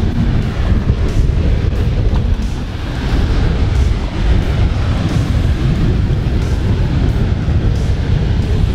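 Strong wind buffeting the microphone, a loud low rumble that rises and falls, with choppy sea beneath it.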